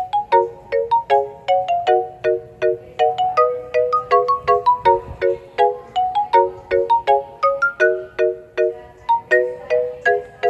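Music: a bright melody of short, struck notes at about four notes a second, each note fading quickly, in the style of a ringtone or marimba tune.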